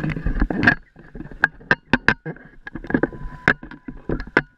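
Choppy shallow seawater lapping and splashing against a camera held at the water's surface, a string of irregular sharp slaps over a low rumble.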